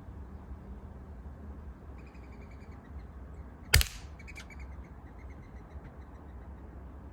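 A single sharp shot from a .22 Umarex NOTOS PCP air rifle firing a standard pellet, about four seconds in, followed about half a second later by a fainter tick. Birds chirp repeatedly in the background.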